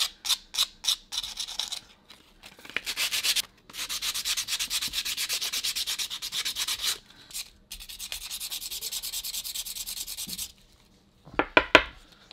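Hardened epoxy putty being hand-sanded with medium-grit sandpaper, a scratchy rubbing of quick back-and-forth strokes. It starts as separate strokes, becomes fast and continuous after about two and a half seconds with a short break near the middle, stops briefly, and a few strokes follow near the end.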